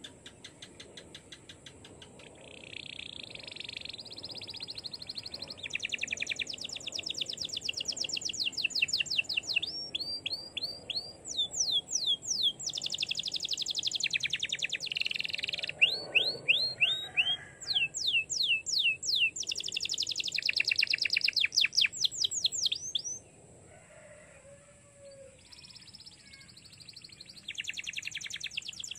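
Domestic canary singing a long, varied song of rapid trills and quick repeated notes, breaking off for a few seconds near the end and then starting again.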